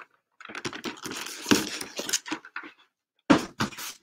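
Shrink-wrapped cardboard boxes handled and slid across a tabletop: uneven rustling and scraping, then a couple of louder bumps near the end as a box is set down.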